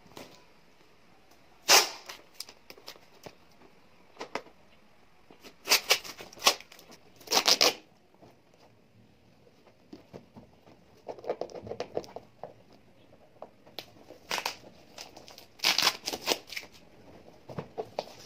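Clear packing tape and a blue plastic parcel wrapping being picked at and torn open by hand: scattered sharp rips and crinkling plastic, with a longer tear about seven seconds in and another cluster of tears near the end.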